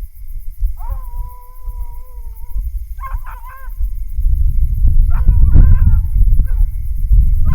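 Coonhounds baying on a hot raccoon track: one long drawn-out bawl about a second in, then shorter choppy barks. A heavy low rumbling noise swells under the barks from about halfway through and becomes the loudest sound.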